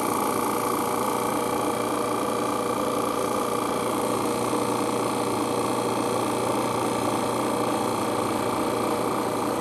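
Robinair RG3 refrigerant recovery machine running with a steady, even hum, pulling the last of the R134a out of a car's A/C system, which has gone flat to zero on the gauges.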